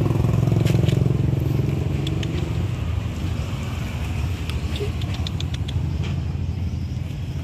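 A motor vehicle engine running nearby, a steady low rumble that is loudest for the first two seconds and then eases off. A quick run of light clicks comes about five to six seconds in.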